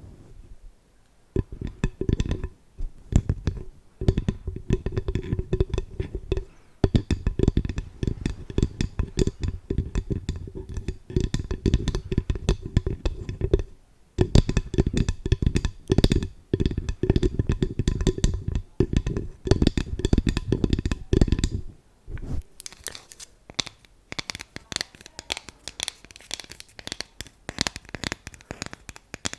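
ASMR tapping: rapid fingertip tapping on a hollow object that rings with a low tone, in long bursts broken by brief pauses. About three-quarters of the way through it changes to lighter, sharper clicking taps.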